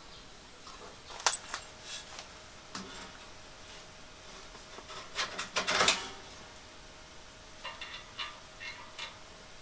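Metal clinks and clatter of Allen keys and the steel legs of a Petromax gas table being screwed together: a sharp clink about a second in, a louder flurry of rattling around five to six seconds, then light ticks near the end.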